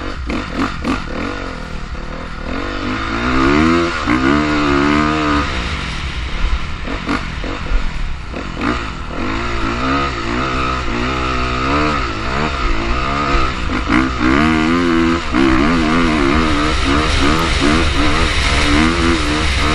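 Dirt bike engine revving up and down repeatedly under the rider's throttle, its pitch climbing and dropping every second or two as it shifts and accelerates.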